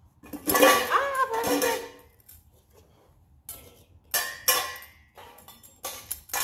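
A dog making noise in three bouts, each a noisy vocal sound with a pitch that bends up and down, the first and longest about a second and a half.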